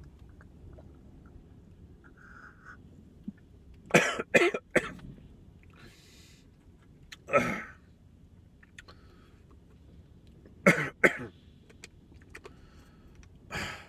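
A man coughing in short fits after a swallow of liquid cold medicine went down the wrong pipe: three quick coughs about four seconds in, another a few seconds later, then a pair and a last one near the end.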